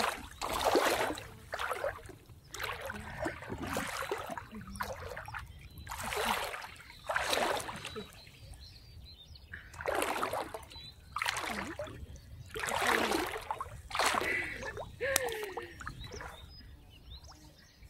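Water splashing and sloshing in irregular bursts, about one every second or so, as a serval cat paddles through a shallow river and a person wades alongside holding it.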